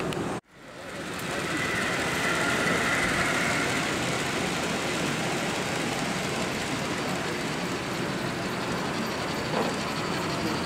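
Model trains running on a layout amid the steady murmur of a busy exhibition hall. The sound drops out abruptly about half a second in and fades back up.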